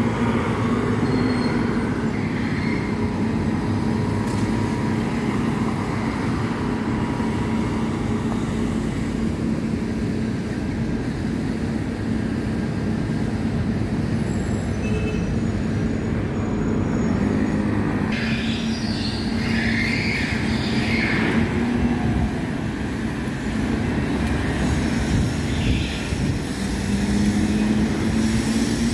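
Steady road-traffic noise at a busy intersection: vehicle engines and tyres with a constant low engine hum, and a brief high squeal about two-thirds of the way through.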